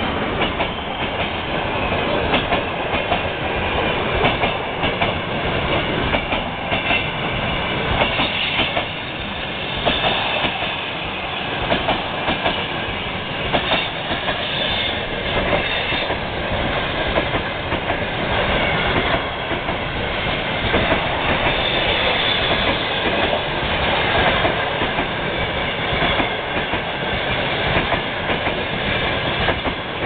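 Express passenger train's coaches rolling past close by, their wheels clattering steadily over the rail joints.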